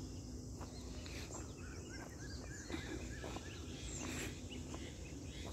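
Rural outdoor ambience: small birds chirping in short repeated notes through the middle, over a steady high insect hiss and a low rumble.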